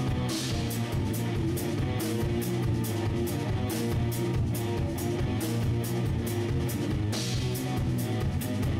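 Instrumental progressive rock music: guitar over a drum kit keeping a steady beat.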